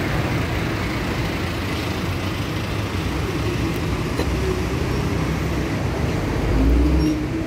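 Engine of an Isuzu city bus running as it pulls in to the stop, amid street traffic. The low rumble grows louder near the end as the bus draws alongside.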